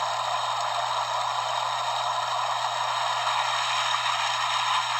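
Water-rushing sound effect from the N-scale Broadway Limited water tower's sound module, played through its tiny speaker as a steady hiss with no low end, over a low electrical hum.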